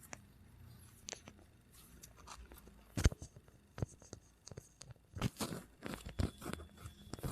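Scattered clicks, crackles and rustles of hands and body being worked on during a chiropractic treatment, with one sharp crack about three seconds in and a run of smaller clicks in the second half.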